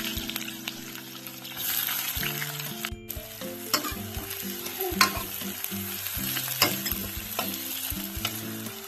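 Chopped onion sizzling in hot oil with crackled cumin in a pan, stirred with a spoon that clicks against the pan now and then.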